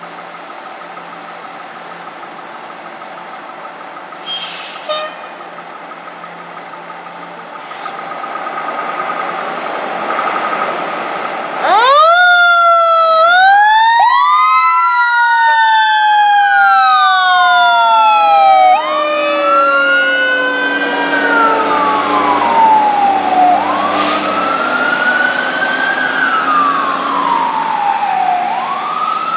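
Fire engine's siren starting about 12 seconds in and wailing up and down in slow sweeps, with two siren tones overlapping. Before it, the truck's engine runs with a steady hum that grows louder as the truck rolls out.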